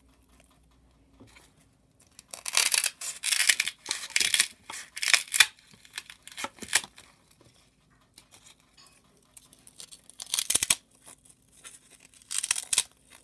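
Scissors snipping through a block of foam, cutting it into small pieces. A run of snips comes in the first half, then a couple of single cuts, and another short run near the end.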